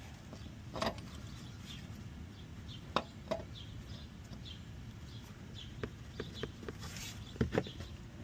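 A few scattered light clicks and knocks of tools and parts being handled at the front of a car engine during a harmonic balancer swap, over a low steady background hum.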